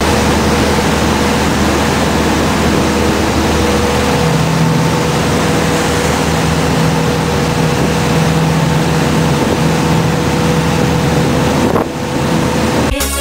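Motorboat engine running steadily at speed while towing, with the rush of the churning wake and wind buffeting the microphone.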